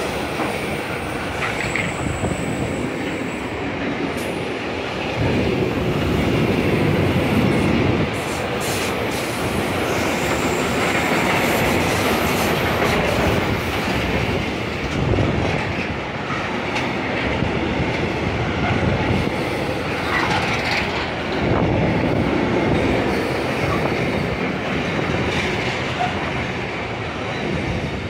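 Container freight train of tank-container wagons rolling past close by: steady wheel-on-rail noise with a couple of brief, high wheel squeals.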